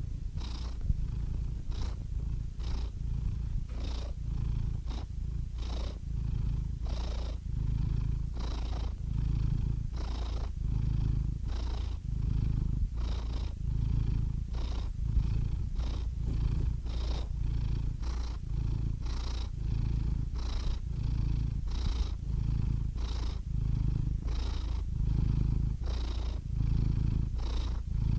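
Domestic cat purring steadily close up, a low rumble that swells and eases with each breath in and out, a little more than once a second.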